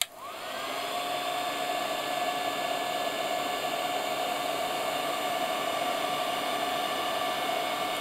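Heat gun switched on with a click, its fan whine rising over the first second and then holding steady over the rush of hot air blowing up under an LED star heatsink to melt the solder.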